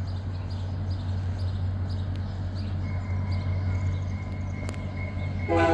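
Approaching VIA Rail F40PH diesel locomotive, a steady low drone; near the end its air horn starts to blow.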